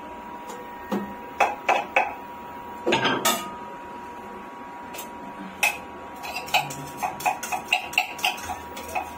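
Metal spoon clinking and scraping against a small steel cup as its contents are knocked out into a frying pan. Scattered single clinks give way to a longer clatter about three seconds in, then a quick run of light taps over the last three seconds.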